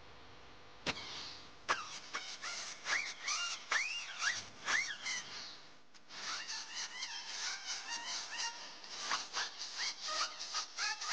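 Pneumatic disc sander grinding down weld beads on a steel sheet-metal panel, starting about a second in. It goes in short, uneven passes, with a whine that rises and falls in pitch as the disc bites and lets go.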